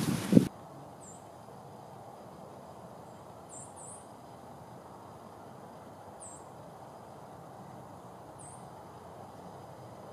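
A half-second of rustling and microphone handling noise cuts off sharply. What follows is a quiet woodland background with a small bird's short, very high chirps every two seconds or so, one of them doubled.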